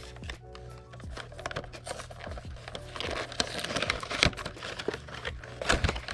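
Cardboard blind box being opened by hand: sharp snaps and taps of the flaps and inner tray, with the wrapping inside crinkling about three seconds in. Faint background music underneath.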